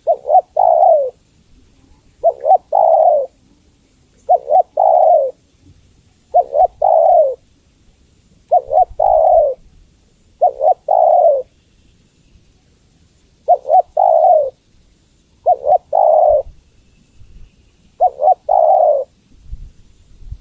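Spotted dove cooing: nine repeated phrases about two seconds apart, each two short coos followed by a longer, slightly falling coo. The uploader presents it as a female's call that draws males to answer.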